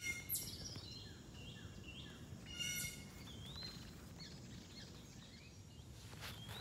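Wild birds calling: a harsh, buzzy call right at the start and again shortly before the middle, with short rising whistled notes in between, over a low steady rumble. A few light clicks or rustles start near the end.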